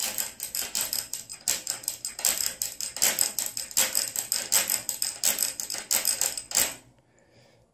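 Thin metal rod, a triangle beater, tapped in a fast, even rhythm against an upside-down bicycle's chain and chainring, giving a bright, snare-like metallic clatter that stops abruptly near the end.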